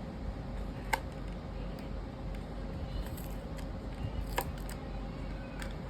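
A few light, sharp clicks of small hard parts being handled, over steady background hum.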